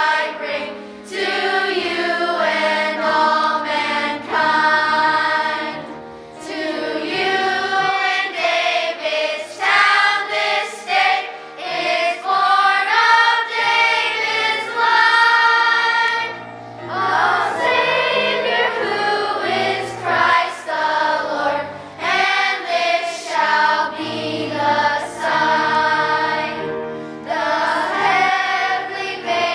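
A children's choir singing a song together, phrase by phrase, with brief breaths between phrases.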